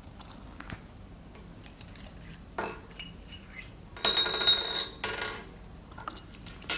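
Small metal lock parts and tools clinking and jingling during lock-cylinder disassembly. There are a few light clicks, then a loud metallic jingle about four seconds in, in two quick bursts.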